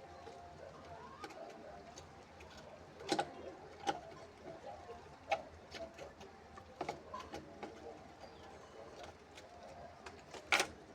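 A handful of scattered sharp metal clicks and knocks, the loudest near the end, from butterfly sewing machine parts being fitted back on and tightened.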